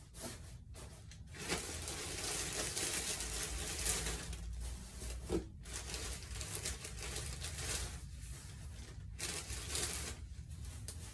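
Plastic wrapper of a pack of Always Discreet pads crinkling and rustling as it is handled and the pads are pushed into a container. The rustling comes in spells with several short breaks.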